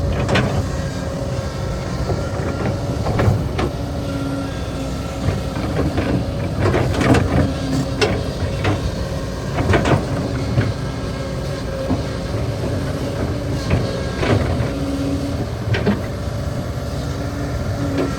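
Kobelco hydraulic excavator working: its diesel engine runs steadily under load with a whining hum, and irregular knocks and clanks come through it as it digs.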